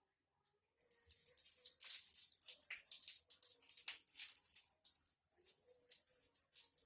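Water running from a tap and splashing over hands being washed, starting about a second in and briefly breaking off a little past halfway.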